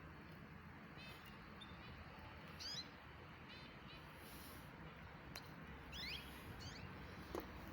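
Small birds chirping faintly: short trills and a few quick rising calls, over a low steady hum.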